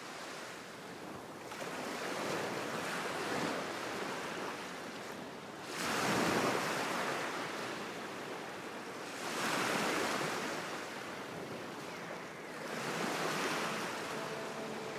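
Sea waves breaking and washing onto a beach, the surf swelling and falling back four times, about every three to four seconds, the second swell the loudest.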